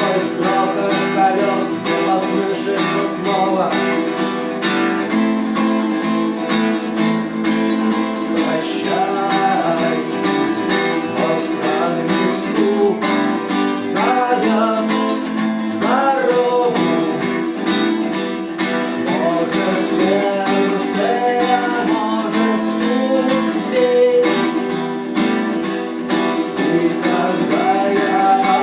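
Strummed acoustic guitar with a man singing over it, a steady rhythm throughout.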